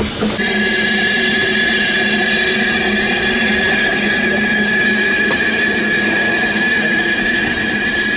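Steel wheel flanges of a narrow-gauge Fairlie steam locomotive squealing steadily against the rail as it rounds a tight curve. The high, ringing squeal starts just after the opening and holds unchanged.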